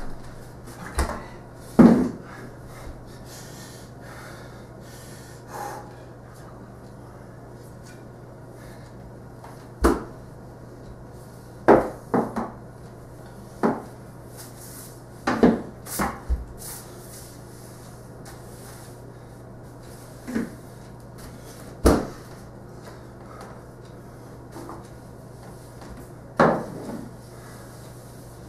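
Scattered, irregular wooden knocks and clunks of a crutch and broom being handled and set down on a hardwood floor while someone hops on one leg and sweeps, over a steady low hum.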